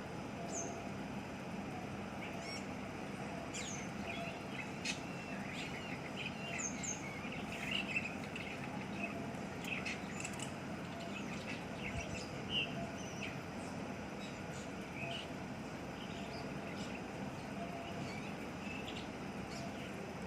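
Lovebirds chirping: many short, high chirps scattered through the first two-thirds, growing sparse after that, over a steady background hiss.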